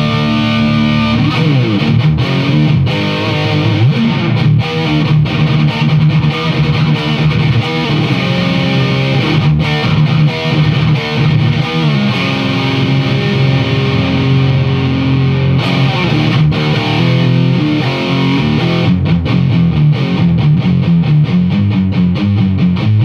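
Heavily distorted electric guitar played through a Crate Vintage 60 amp rebuilt as a high-gain Splawn/Soldano-style amp: sustained notes and riffs, turning to a choppy, rhythmic chugging riff near the end.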